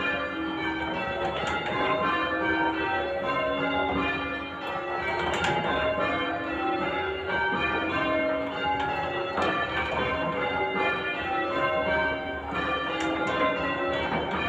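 Church tower bells in full-circle change ringing, the bells striking one after another in a steady rhythm with their tones overlapping.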